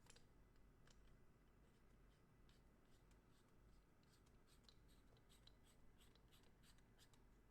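Near silence with faint, scattered small clicks and light rubbing: a studio microphone being handled and fitted into its cradle. The clicks come thicker in the second half.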